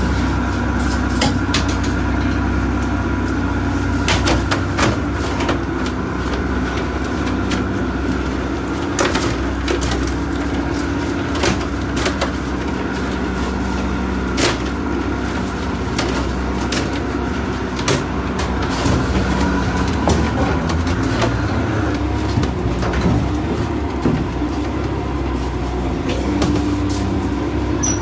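Lobster boat's engine running steadily, with scattered knocks and clatter from traps, bins and lobsters being handled on deck.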